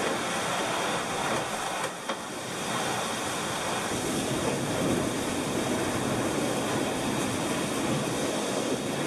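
Steady rush of water and spray as an IMOCA ocean-racing monohull sails fast through rough seas, with water sheeting over the coachroof window. A short knock about two seconds in.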